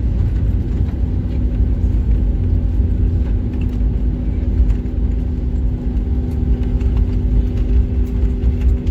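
Cabin noise of an Airbus A320neo on its landing roll: a loud, steady low rumble from the runway and engines, with a steady hum through it, as the deployed ground spoilers slow the jet.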